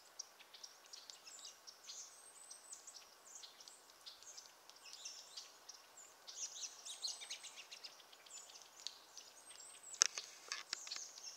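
American goldfinches giving many short, high chirps and twitters throughout, more crowded together for a couple of seconds past the middle. A single sharp click about ten seconds in is the loudest sound.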